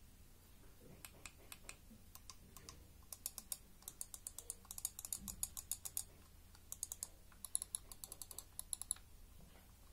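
Buttons of a SteelSeries Sensei RAW mouse being clicked over and over, a few single clicks at first, then quick runs of sharp clicks with a short pause about six seconds in.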